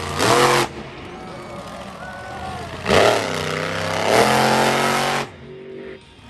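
Monster truck's V8 engine revving under heavy throttle: a short sharp blip just after the start, a lower stretch, then a long hard rev from about three seconds in that cuts back a little after five.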